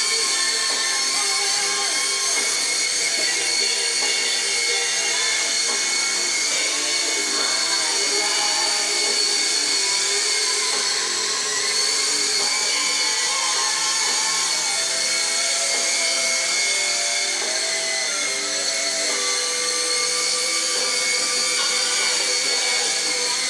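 Electric motors of a SYMA S032 radio-controlled toy helicopter running in flight: a steady high-pitched whine whose lower tones shift a little in pitch.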